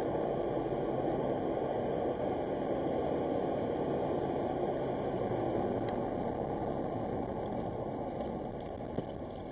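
Steady road and tyre rush with engine hum inside a car driving at high speed on a motorway, picked up by a dashcam's microphone; it eases slightly near the end as the car slows, with one short click shortly before the end.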